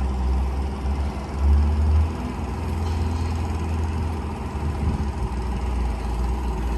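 An engine idling steadily: a low hum with a short swell about one and a half seconds in.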